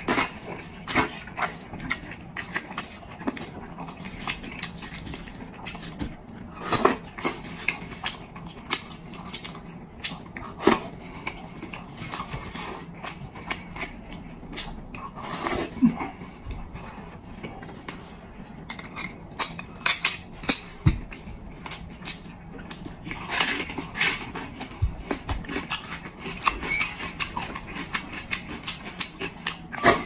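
Close-miked chewing and lip-smacking of a person eating fatty red-braised pork knuckle: irregular wet smacks and clicks, some much louder than others.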